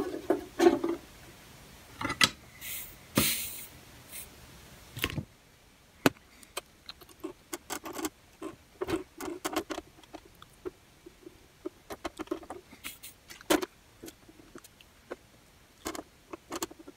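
Small irregular clicks, taps and scrapes of tweezers and a soldering iron against a CCFL inverter circuit board and the bench as a through-hole capacitor is held and soldered in. A short burst of hiss about three seconds in.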